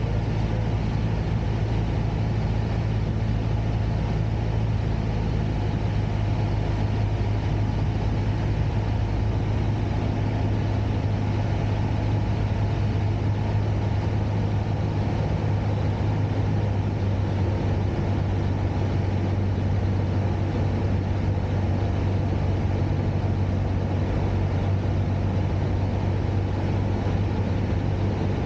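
Cessna 172's piston engine and propeller droning steadily, heard from inside the cabin, with a strong low hum that holds an even pitch and level throughout.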